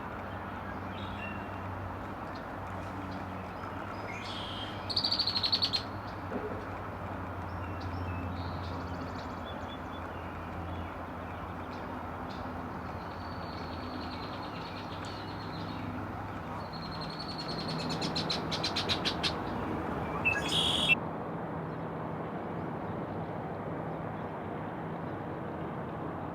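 Wild birds calling: scattered high chirps, with a loud rapid run of notes about five seconds in, a longer rapid series later, and a short loud call near the end, over a steady low hum.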